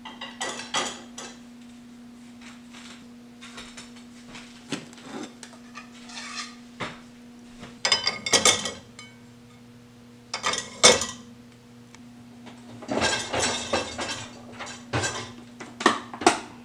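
Ceramic plates and dishes clinking and clattering as they are handled in a dishwasher's racks, in several separate bursts, over a steady low electrical hum.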